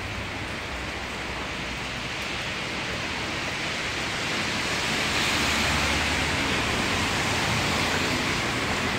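Heavy rain mixed with hail falling on parked cars and the wet street: a steady, dense hiss that grows louder about halfway through.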